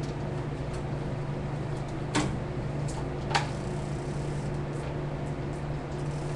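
A steady low hum with two light, sharp clicks about a second apart, from fishing rods and their terminal tackle being handled.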